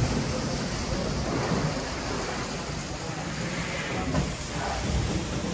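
1812 Boulton & Watt steam beam engine running as it pumps water: a steady hiss of steam over a low rumble of the machinery.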